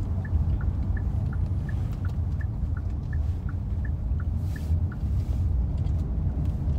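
Low road rumble inside a moving car's cabin, with a turn-signal indicator clicking in a steady two-note tick-tock, about three clicks a second.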